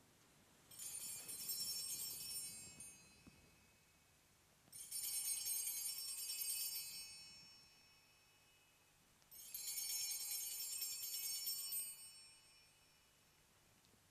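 Sanctus bells (a cluster of small altar bells) shaken three times, each ring a jingling about three seconds long, marking the elevation of the consecrated host.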